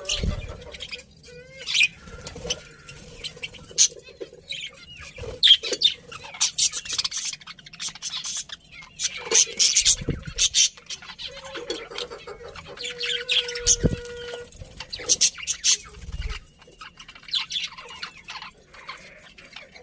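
Budgerigars chirping and chattering in quick, irregular bursts of high warbling calls, with a few short low thumps in between.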